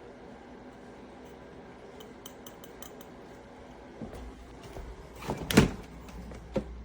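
Hard objects handled and knocking together: a few light clicks, then a clatter about five seconds in, and one more knock near the end.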